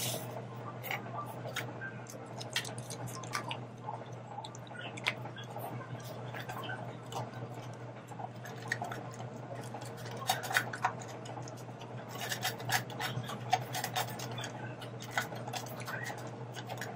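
Pungsan dog eating dry kibble from a stainless steel bowl: irregular crunching and sharp clicks of kibble against the metal, busiest about two-thirds of the way through. A steady low hum runs underneath.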